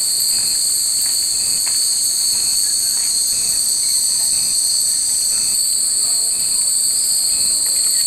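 A chorus of cicadas droning steadily at a high pitch, with faint, scattered clinks of fūrin wind chimes hanging in the tree.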